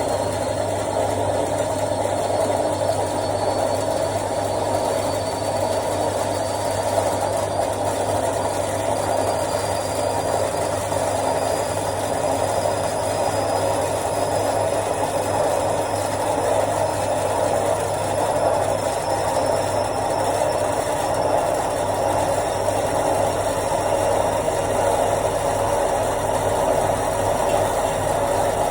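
Washing machine on its spin cycle: a steady hum and rumble of the spinning drum with a light rattle. A faint high whine rises slowly as the drum works up toward full speed.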